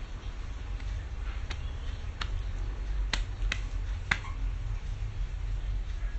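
About five short, sharp clicks, unevenly spaced, between one and four seconds in, over a steady low hum.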